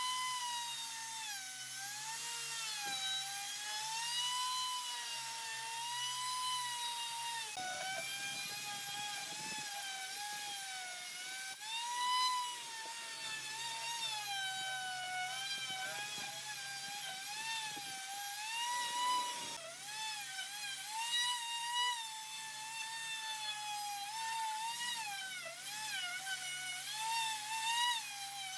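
Electric power tool running with a continuous high whine whose pitch keeps dipping and recovering as it is pushed into the work, with rougher grinding noise in two stretches, about a third and two thirds of the way through.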